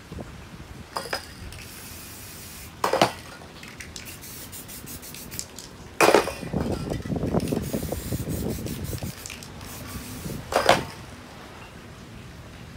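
Aerosol spray-paint cans hissing in several short bursts, with metal cans clinking and rattling between sprays.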